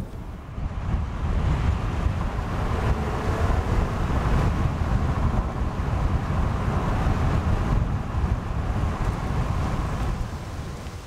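Wind buffeting the microphone: a steady, gusty low rumble that stops abruptly near the end.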